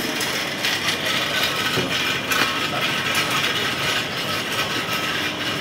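Busy shopping-street ambience: a steady rattling, clattering noise with no speech.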